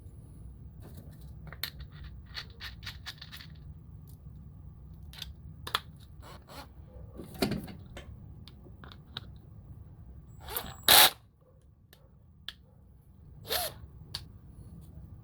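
Pieces of a drill brush set being handled: a run of light clicks and taps, with a much louder clatter a little before eleven seconds in and a shorter one near the end.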